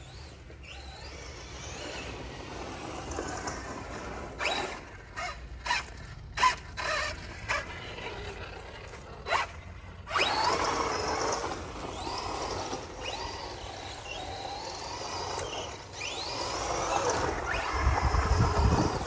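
Losi 8ight X Super Lasernut 1/6-scale electric buggy's brushless motor and drivetrain whining as it drives through grass, the pitch rising and falling with the throttle. Short bursts come first, then it runs continuously from about halfway.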